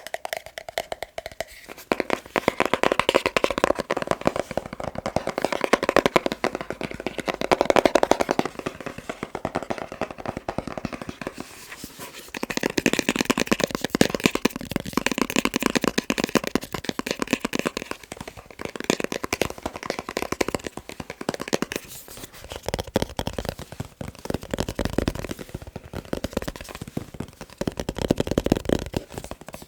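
Fast finger tapping on objects: dense runs of quick taps, with a short lull about twelve seconds in and another about twenty-two seconds in.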